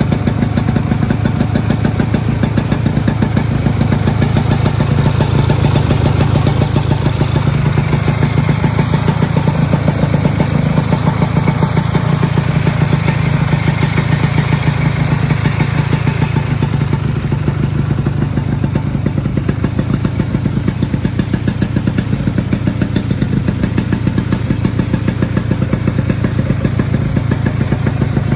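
A 1970 Ski-Doo TNT snowmobile's Black Dot two-stroke engine running steadily while the sled stands still, with a fast, even exhaust pulse. It swells slightly partway through, then settles back.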